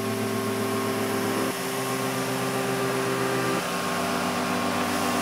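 Kärcher ride-on scrubber-dryer running as it drives across a concrete floor, a steady motor and vacuum whir. Under it, held music chords that change about every two seconds.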